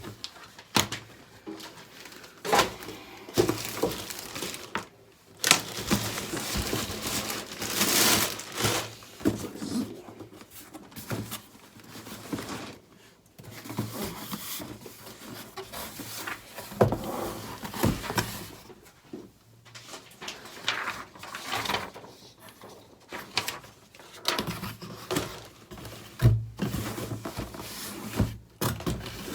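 Cardboard shoebox being opened and its contents handled: irregular rustling, scraping and light knocks, coming and going with short pauses.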